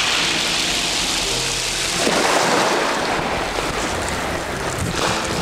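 Sea surf and wind noise: waves washing on the shore, swelling about two seconds in, with wind on the microphone.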